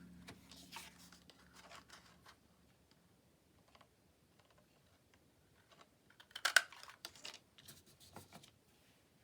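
Paper being handled and snipped with scissors to cut a small notch into a folded paper pocket: scattered light crisp clicks and rustles, with a louder cluster of snips about six and a half seconds in.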